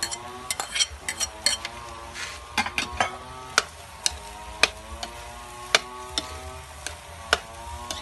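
A metal spoon stirring and scraping food in a wok, with sharp clinks against the pan about once a second over a soft sizzle.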